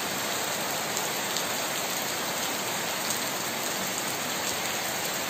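Heavy rain pouring steadily onto trees and a flooded paved yard: a dense, even hiss of rain splashing into standing water.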